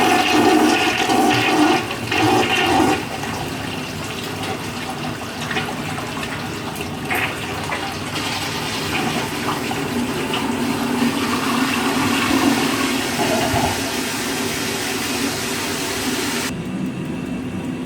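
1964 Universal Rundle wall-hung toilet flushing from a Briggs Conserver tank. A loud rush of water over the first three seconds as the bowl siphons is followed by a steady hiss of refilling water, which stops abruptly about sixteen seconds in.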